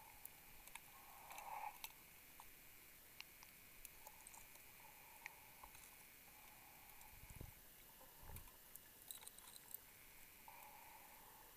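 Near silence through an underwater camera housing: faint, muffled breathing on a closed-circuit rebreather, slow drawn-out breaths coming and going, with scattered light clicks of gear and two dull low thumps about seven and eight seconds in.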